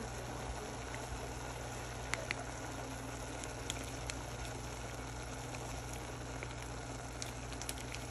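A pot of instant noodles boiling on a stove, giving a steady bubbling hiss with a few faint ticks, over a low steady hum.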